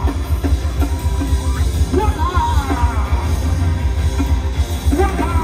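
Loud music with a heavy bass and a voice sliding in pitch over it.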